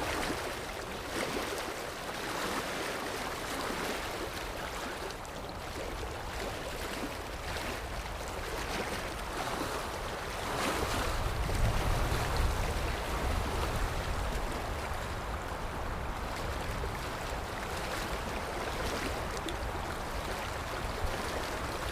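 Sea waves surging and washing in slow swells, with a louder surge and deeper rumble about halfway through.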